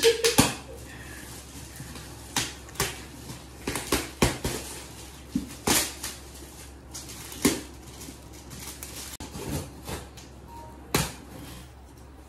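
Shiny foil gift wrap being torn and pulled off a large box, in a string of irregular sharp crackles and rips.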